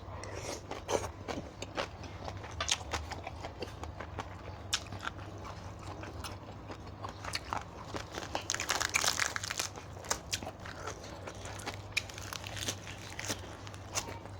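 A person chewing and crunching mouthfuls of papaya salad close to the microphone, with many small crunches and a thicker run of crunching about nine seconds in.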